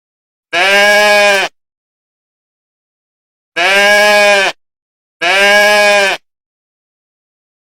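A goat bleating three times, alike calls about a second long each with gaps between.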